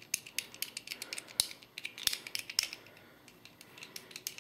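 Small plastic airsoft gun parts being handled and fitted back together by hand: a quick run of light clicks and taps that thins out after about three seconds.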